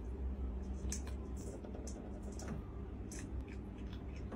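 Quiet indoor room tone: a low steady hum with faint, irregular short clicks and ticks, roughly one every half second.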